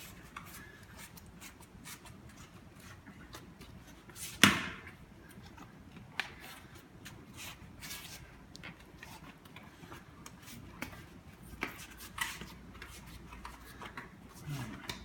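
Hands working a bicycle inner tube around inside the tyre on the rim: scattered light rubbing and small clicks, with one sharp knock about four and a half seconds in.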